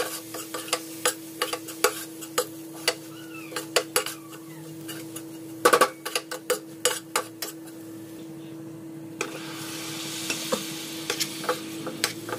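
Steel spoon stirring and scraping a thick masala in a stainless steel pot, with many sharp clinks against the metal and a louder burst of clanks about halfway. About three-quarters of the way in, a sizzling hiss sets in as raw chicken pieces go into the hot pot.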